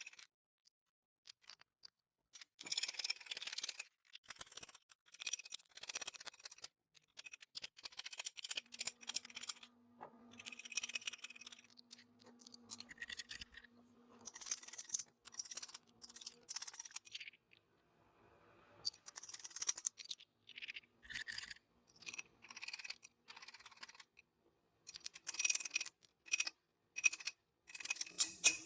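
Quiet, scratchy scraping in repeated bursts a second or two long, with short pauses between.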